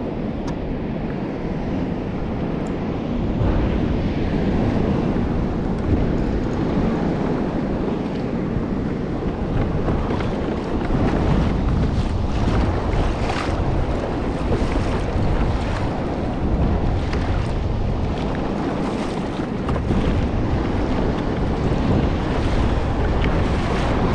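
Wind buffeting the microphone over choppy open sea, with water lapping and splashing against the kayak hull and sharper splashes now and then.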